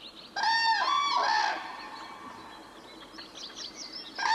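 A rooster crowing once, loud and rising and falling in pitch, with a second crow starting near the end. Small birds chirp faintly in between.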